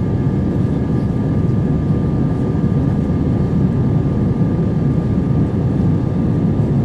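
Airbus A320 in flight heard from inside the passenger cabin: the steady roar of the jet engines and rushing air, with a faint high engine whine held at an even pitch.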